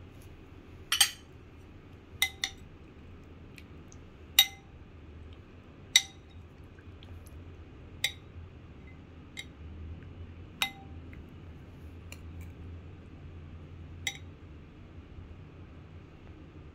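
Metal spoon clinking against a soup bowl: about ten separate sharp clinks, spaced one to two seconds apart, the loudest in the first half. A faint steady low hum runs underneath.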